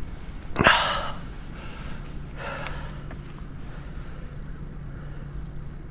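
A person's sharp breath or sniff about a second in, then a softer breath around two and a half seconds, over a steady low hum.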